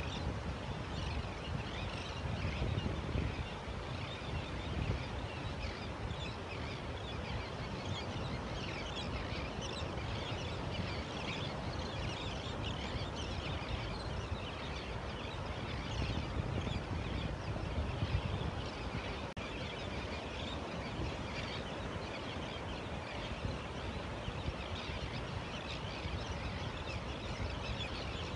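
A mixed flock of terns and gulls calling continually, many short high calls overlapping, over the steady low rumble of surf breaking on the beach.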